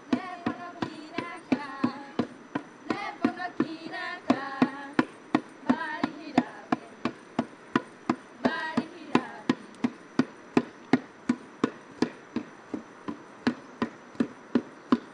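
Small hand drum beaten in a steady, even beat of about three strokes a second for an Emberá dance, with women singing over it until about nine seconds in.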